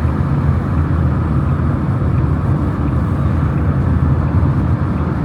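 Steady low vehicle rumble, like road or engine noise from traffic or from inside a moving vehicle, with no distinct events.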